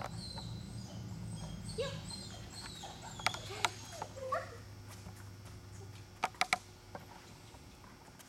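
Dog whining in short, high-pitched rising and falling whimpers during the first half, with a few sharp taps in the middle.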